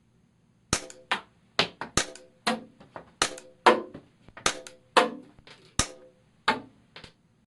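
Tanaka P226 MK25 model gun firing caps in a quick string, about a dozen sharp cracks spaced half a second to a second apart, each followed by a short metallic ring and a lighter click as the slide cycles.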